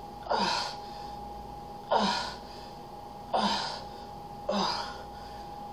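A man breathing out hard with each repetition of a dumbbell triceps exercise: four sharp, forceful breaths about a second and a half apart. A steady hum runs underneath.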